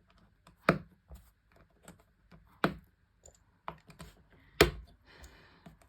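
K'NEX plastic rods and connectors clicking as they are snapped together: three sharp snaps about two seconds apart, the last the loudest, with lighter clicks and a soft rustle of handled pieces between.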